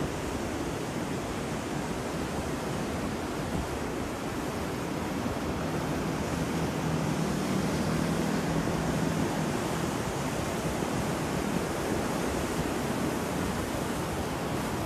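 Steady rushing storm noise, a dense even roar of wind and water, swelling slightly about halfway through.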